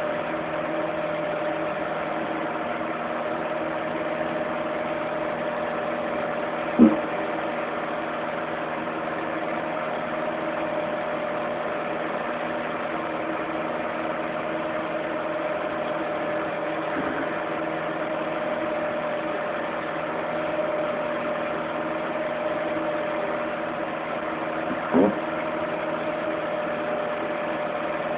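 Electric fan heater running: a steady blower hum with a constant whine. Two short knocks cut through it, one about seven seconds in and another a few seconds before the end.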